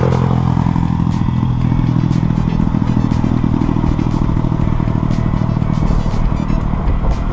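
Motorcycle engine running at a steady speed while riding, with wind rush over a helmet-mounted camera and a few light rattles from the mount.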